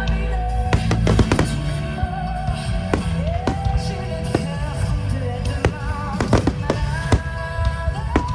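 Fireworks going off in many sharp, irregular bangs over loud music playing on the show's sound system.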